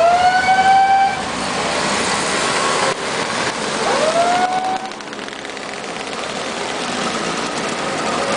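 A procession of 50 cc two-stroke Puch mopeds riding past at low speed, their engines buzzing. Twice, at the start and again about four seconds in, a high tone sweeps quickly upward and holds for about a second.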